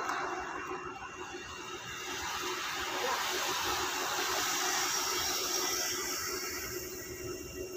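A group of road bicycles riding past close by: a rushing hiss of tyres on the road that swells as the pack goes by in the middle and eases near the end, over a faint steady hum.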